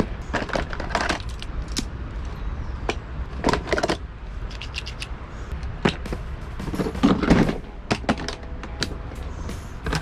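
Plastic tackle boxes and lure cases being handled: irregular clicks, knocks and rattles, busiest about seven seconds in, over a steady low rumble.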